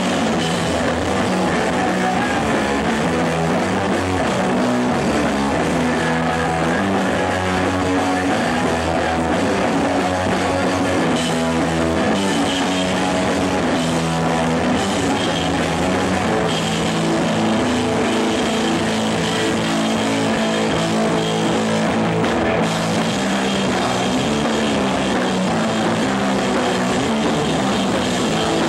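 Hardcore punk band playing live, with electric guitar and drum kit, loud and continuous.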